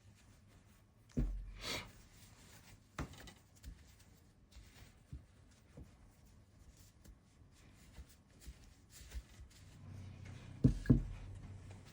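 Quiet handling sounds of seal-stamping work at a desk: a few scattered light knocks and rubs, with two sharper knocks close together near the end.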